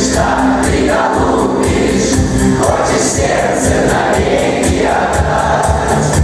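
School choir singing to a backing track with a steady beat.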